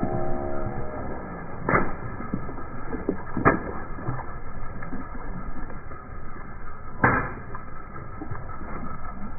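Water balloons bursting under a slowly rolling car tyre: three sharp pops with a splash, a couple of seconds apart, the last the loudest. A brief squeaking tone fades out in the first second.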